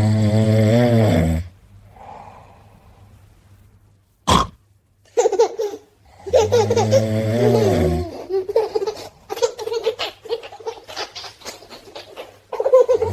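A baby laughing and giggling in short choppy bursts, between three long, deep, drawn-out vocal sounds about six seconds apart. A single sharp click comes a little after four seconds in.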